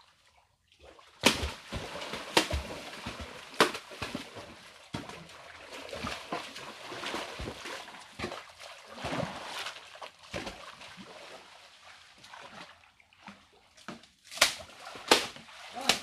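River water splashing and sloshing as people wade through it waist-deep, with a few sharp splashes: three in quick succession after about a second, and two more near the end.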